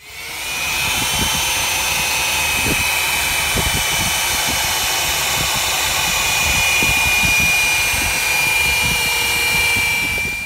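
Electric polisher running with a steady high motor whine, its spinning pad grinding over a boat's window glass to polish off water-spot scale.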